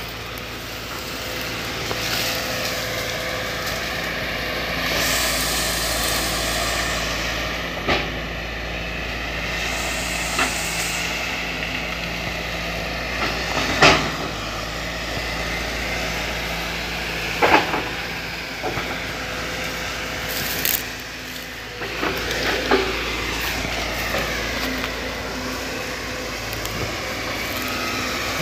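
Sumitomo hydraulic excavator running under load, its engine and hydraulics rising and falling in pitch as the arm works, with sharp cracks and knocks every few seconds as it pushes and stacks cut palm fronds and brush.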